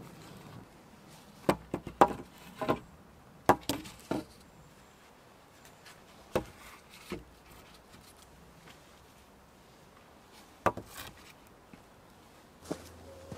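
Deadwood poles knocking against one another and against the log ridge pole as they are laid side by side for a shelter roof. Sharp wooden knocks, about half a dozen in the first four seconds, then a few more spread out.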